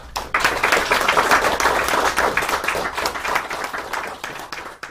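Audience applauding: dense clapping that swells a moment in, then gradually thins out toward the end.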